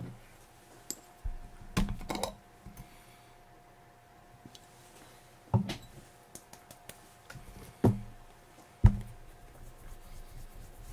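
A handful of sharp knocks and clunks of hard objects being handled and set down on a hard surface, the loudest near the end, with a faint steady hum underneath.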